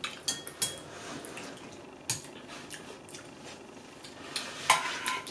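Chopsticks clicking lightly against a ceramic bowl, a few scattered taps, with small eating noises in between.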